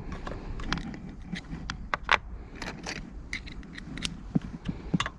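Irregular light clicks, clinks and scrapes of a Torx screwdriver and small screws being handled while a leaf blower's plastic housing is taken apart.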